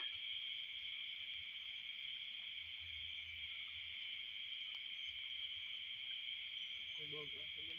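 Night insect chorus: a steady, unbroken high-pitched drone of many insects calling together.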